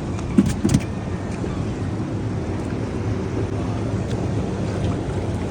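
Boat motor running steadily, with two short knocks about half a second in.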